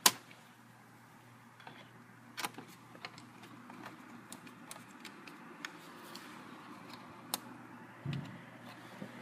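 Small screws and a screwdriver clicking and tapping against a laptop's plastic screen assembly as the screws are put back in, with a sharp click at the start as the loudest sound. A faint, steady low hum runs through the middle.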